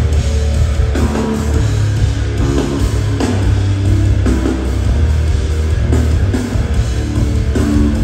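A live rock band playing through the PA, with electric guitar and a heavy bass line over drums and no singing.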